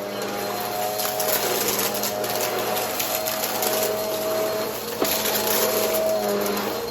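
Vacuum cleaner running with its brushroll spinning: a steady motor hum and hiss with scattered faint crackles, and a sharp click about five seconds in.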